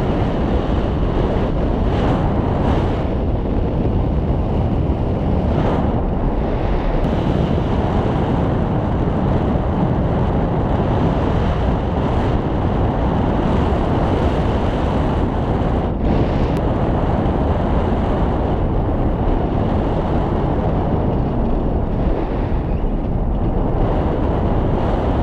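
Steady rush of wind over the camera microphone in paragliding flight, the airflow from the glider's forward speed.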